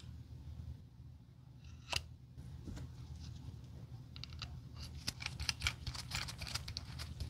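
A rotary tool's keyless metal chuck being handled as a sanding drum bit is seated and the chuck collar twisted tight by gloved hands. There is one sharp click about two seconds in, then a run of small quick clicks and scrapes from about four seconds on.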